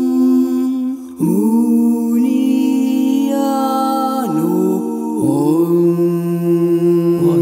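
Slow vocal music: a voice singing long held notes that move to a new pitch about a second in and again twice later.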